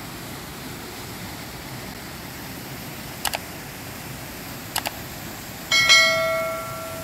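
A single bell-like ding near the end, struck suddenly and ringing out with several overtones for about a second and a half. It is preceded by two quick double clicks, all over a steady hiss.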